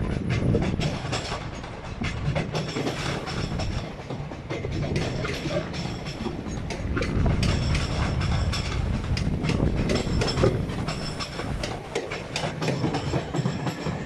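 Multi-carriage electric passenger train running over the junction points below, its wheels clattering in a rapid, uneven stream of clicks over a steady low rumble.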